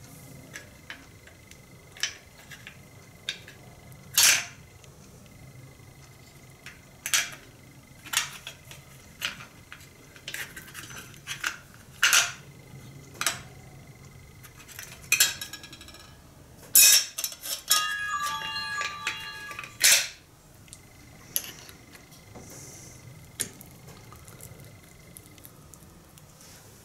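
Metal parts and tools clinking and knocking on a workbench while a hedge trimmer's gear head is handled, in a string of separate sharp clinks. About two-thirds of the way through, a piece of metal rings with several clear tones for a couple of seconds.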